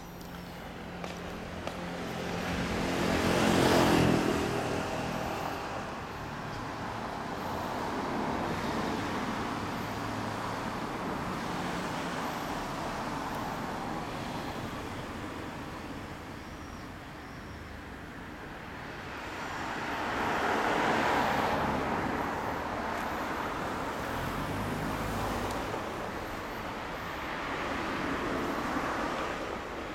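Road traffic: vehicles passing one after another, each swelling and fading, the loudest a few seconds in and again about twenty seconds in.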